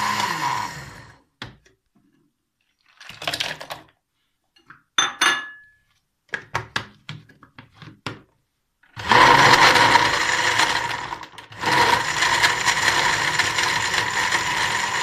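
Electric countertop blender winding down, then a run of short knocks and clicks as ice cubes are dropped into the jar and the lid is put back. About nine seconds in the blender motor starts again to crush the ice into the lassi, stops briefly and starts again.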